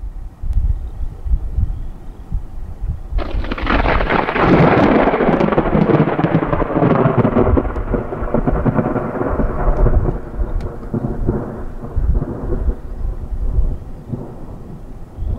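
Thunder from a supercell thunderstorm: a sudden crack about three seconds in, then a long rumble that crackles and slowly fades away over several seconds.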